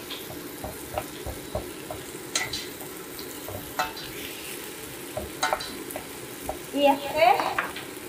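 Onions sizzling in hot oil in a pan, with a utensil stirring them and clicking and scraping against the pan now and then. A voice speaks briefly near the end.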